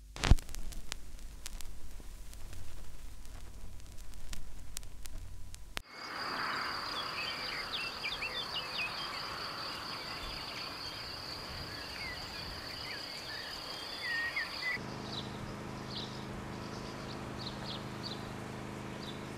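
Summer countryside ambience: a steady high insect trill, like a cricket or grasshopper, with scattered bird chirps, after the first six seconds of crackle and clicks that open with a sharp click. About fifteen seconds in the trill stops and a low steady hum takes over, with bird chirps continuing.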